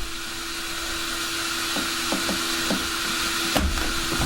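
Steady hiss with a low hum, over a few light clicks and a sharper knock about three and a half seconds in: the body clips and plastic body of an RC car being handled.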